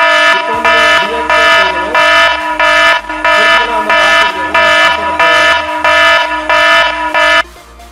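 Phone anti-theft alarm app sounding its alarm: a loud electronic tone beeping about twice a second, triggered by the phone being picked up. It cuts off suddenly near the end as the password is entered to switch it off.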